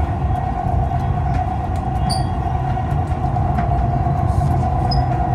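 Dubai Metro train running at steady speed, heard from inside the carriage: a continuous low rumble with a constant whine above it and a few light clicks.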